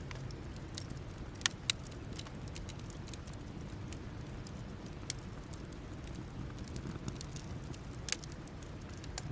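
Wood campfire burning down to embers, crackling with scattered sharp pops, the loudest two close together about a second and a half in and another near the end, over a low steady rumble.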